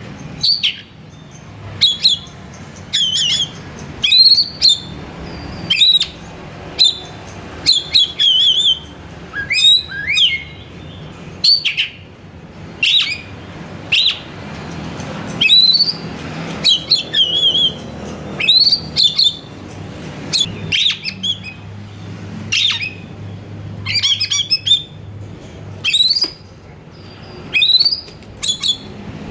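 Oriental magpie-robin (kacer) singing vigorously: short, sharp whistled phrases with quick rising sweeps, about one a second, over a faint steady low hum.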